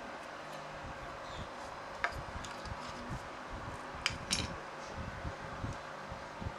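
Small metal carburetor parts clicking and clinking as they are handled, over a steady hiss. A few sharp clicks stand out, one about two seconds in and a close pair about four seconds in.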